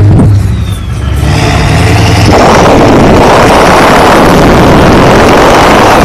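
1997 Ford F-350's 7.3-litre Power Stroke turbo-diesel V8, heard from inside the cab, goes from idle to hard revving. A high whistle rises over the first two seconds, then the engine is held loud at high revs until near the end. It is pouring out thick dark exhaust smoke.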